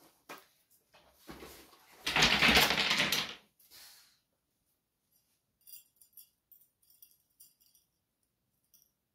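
Objects being handled: a loud rustle lasting just over a second, starting about two seconds in, then a run of light, irregular jingling clicks.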